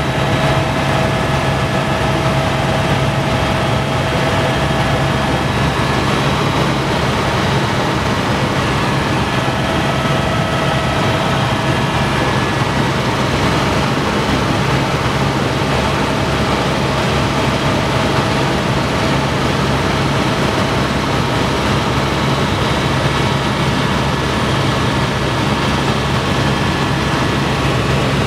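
Helicopter in flight heard from inside the cabin: a loud, steady drone of engine and rotor, with faint steady whining tones above it.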